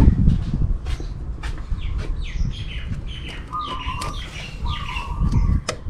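A bird chirping over and over, in short falling chirps, with a few sharp clicks from hands working a car's rubber vent hose.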